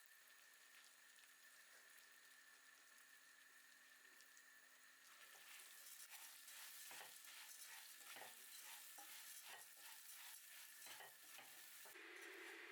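Food sizzling faintly in a frying pan. From about five seconds in, a utensil stirs and scrapes through it in quick, repeated strokes.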